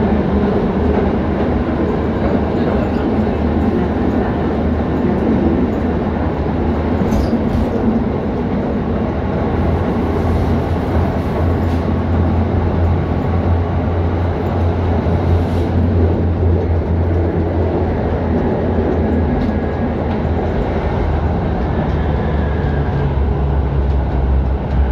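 1965 ASEA M28 tram running, heard from inside the passenger saloon: a steady rumble of wheels on rail with a low hum underneath.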